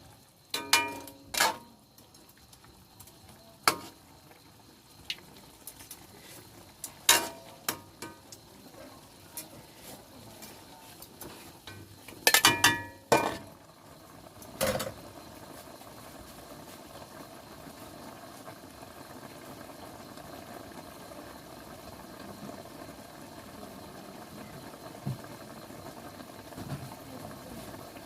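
Sharp clinks and knocks of a utensil against a cooking pot while the chicken adobo is stirred and flipped, with a quick cluster of knocks about halfway. After that, a steady even noise with a faint hum as the pot simmers.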